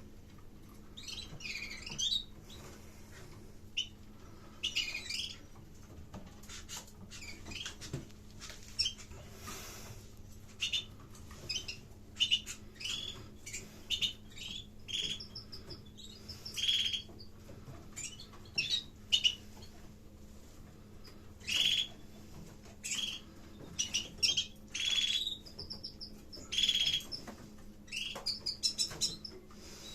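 Caged canaries chirping and calling, with many short chirps scattered throughout, over a faint steady low hum.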